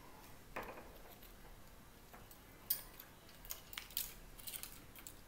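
Faint hand-handling sounds of flower-making materials: scattered light clicks and short rustles as wire, thread and stamens are worked by hand, a few more of them in the second half.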